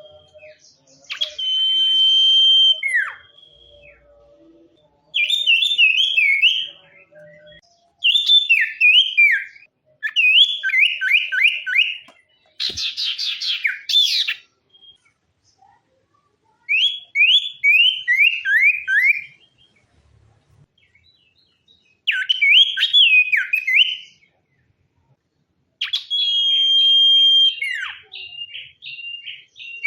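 Sirtu songbird singing a series of separate whistled phrases, each a second or two long with short pauses between, many made of quick runs of falling notes, and one harsh rattling burst about halfway through.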